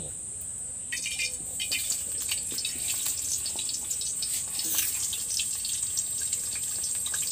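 Whole peeled potatoes sizzling and crackling in hot oil in a karahi as they are dropped in one by one; the crackle starts about a second in and keeps up, over a steady high-pitched trill.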